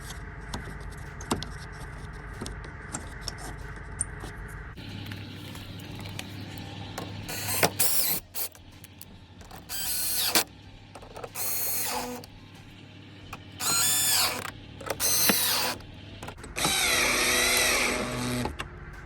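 Cordless drill/driver running in about six short bursts, its pitch rising and falling under load, driving the headlight mounting bolts home. Light clicking is heard in the first few seconds.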